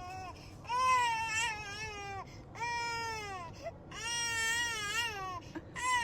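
A dog crying in long, high whining wails that sound almost like a baby, about four drawn-out cries, each falling in pitch at the end, with short breaks between them.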